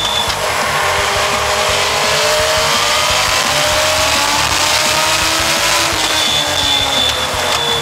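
On-board sound of a U.S. Legend race car at speed. Its Yamaha motorcycle engine runs hard at high revs, the pitch climbing slowly and easing back over a steady rush of noise. A thin, high steady whine joins near the end.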